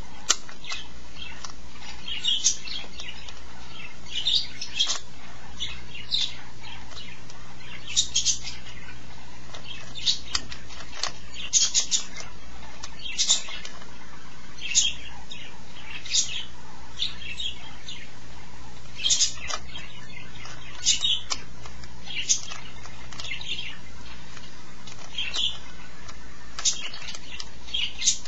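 An old plastic Rubik's Cube being turned by hand: irregular short clicks and clatters of its layers twisting, one to a few turns every second or so, over a faint steady low hum.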